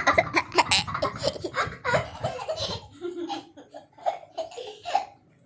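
Children laughing and giggling in quick, choppy bursts, thinning out near the end.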